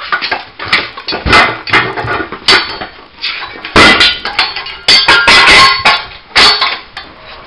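Sharp, irregular metal clanks and knocks from a steel tire bar striking and prying at a steel wheel rim and a homemade bead breaker, as a tire is worked off its wheel by hand.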